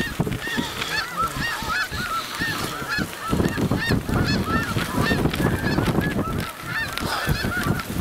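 A dense chorus of snow goose calls: many short, high honks overlapping without a break, over a low rumbling noise that rises and falls.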